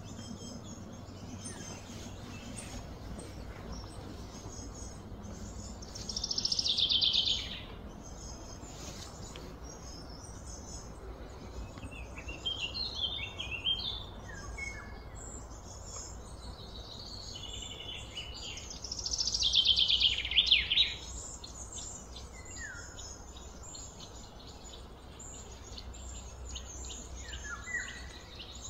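Wild birds chirping and singing, with two louder rapid song phrases falling in pitch about six and nineteen seconds in, over a steady low background hum.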